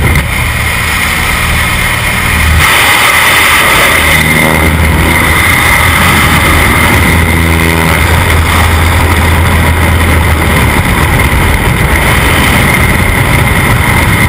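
Steady rush of wind and drone of a small single-engine plane's engine and propeller, heard through the open jump door at altitude. It gets louder about two and a half seconds in.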